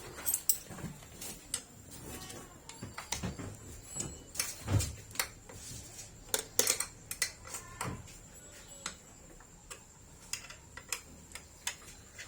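Irregular metallic clinks and knocks of stainless-steel machine parts being handled, with a heavier low thump about five seconds in.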